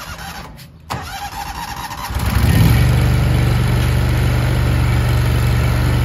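Power King garden tractor engine started on the key: a click about a second in, a brief crank on the starter, then the engine catches about two seconds in and runs steadily. It starts this time after failing to start several times, an intermittent fault that the owner puts down to some electrical problem.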